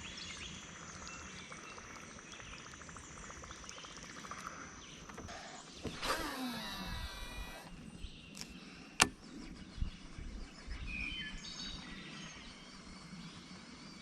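Quiet lakeside outdoor background with faint insect tones and a few bird chirps near the end. About six seconds in a whirring sound falls in pitch for about a second and a half, and a single sharp click comes about nine seconds in.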